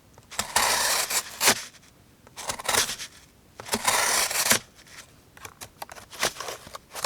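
Knife blade slicing through cardboard in three long strokes, with a sharp click between the first two.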